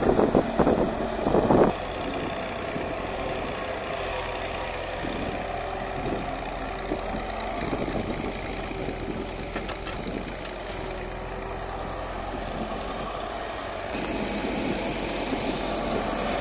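Diesel engine and hydraulics of a JCB JS140 tracked excavator running steadily as it digs in wet sand. A few loud bursts come in the first two seconds.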